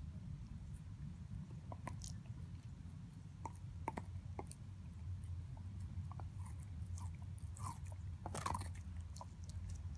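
Siberian husky gnawing and chewing a raw steak bone: irregular short crunches and clicks, with a cluster of louder crunches about eight seconds in, over a steady low hum.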